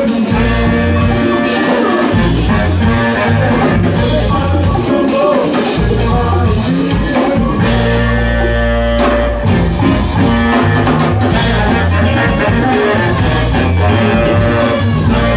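Live band playing a loud, steady groove, with saxophones, electric guitar, keyboard and a drum kit.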